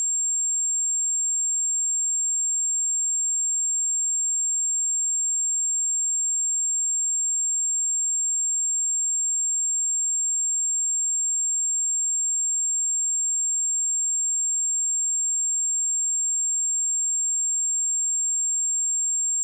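A pure 7446 Hz sine-wave test tone, a single steady high-pitched tone held unchanged at constant level.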